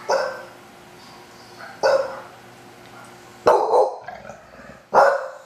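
English bulldog barking four times, about a second and a half apart, the third bark a little longer than the others.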